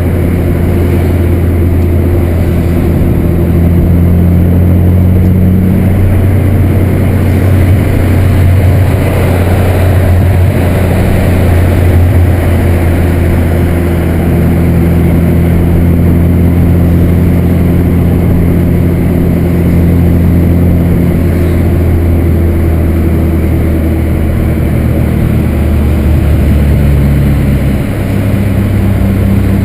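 VW Santana's AP 2.0 inline four-cylinder engine running steadily at cruising speed, a constant low exhaust rumble. The engine note shifts once near the end.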